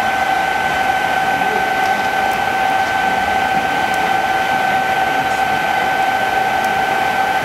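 Steady two-tone whine over an even hiss, typical of a blower drawing the coal fire of a live-steam 5-inch gauge model locomotive.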